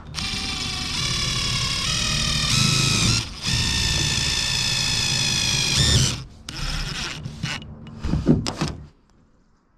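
Cordless impact driver hammering screws through a metal patch panel on a bus roof. It makes two long runs of about three seconds each, then a few short bursts as each screw seats, and stops shortly before the end.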